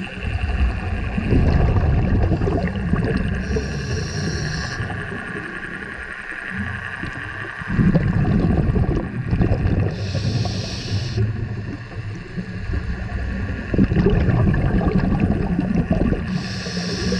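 Scuba regulator breathing underwater: three short hissing inhales, about six and a half seconds apart, alternating with long bursts of rumbling, bubbling exhaust.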